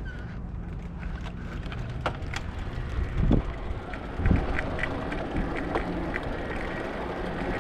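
Wind buffeting the microphone as a bike-share bicycle rolls over paving stones, with small rattling clicks throughout and two louder thumps about three and four seconds in.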